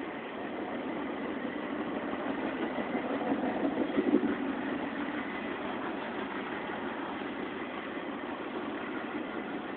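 Norfolk Southern intermodal freight cars rolling through a grade crossing: a steady rolling rumble of steel wheels on the rails, with a brief louder swell about four seconds in.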